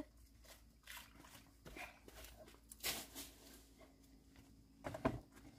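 Faint knocks and handling noises of a plastic washing basin being lifted and tipped. A brief sharp rustle comes about three seconds in and a louder dull thump near the end.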